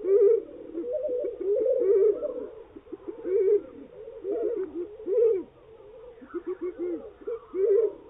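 European bee-eater calls played in slow motion, so they come out deep: many short, arched, rolling calls repeated one after another, several birds overlapping, with a quick run of short calls near the end.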